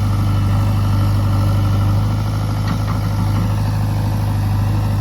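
Heavy diesel engine running steadily at a low, even speed, with a strong steady low hum.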